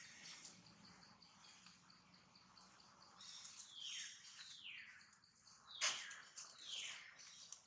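Faint outdoor bird calls: a few high calls, each falling in pitch, come in the second half over a steady, evenly repeating high chirping. A single sharp click about six seconds in is the loudest sound.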